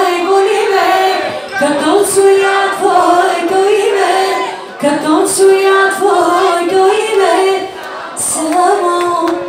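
A woman singing a song into a microphone over backing music, in phrases with short breaths between them.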